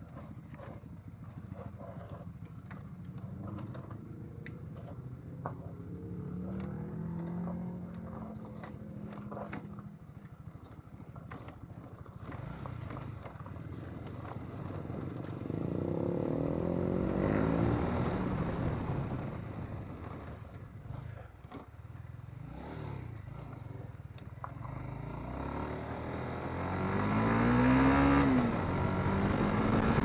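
Honda CBR150R's single-cylinder engine running under a rider, its pitch rising and falling with the throttle, with louder pulls around the middle and near the end. Through the first part, clatter and knocks from the bike going over a rough, rocky track.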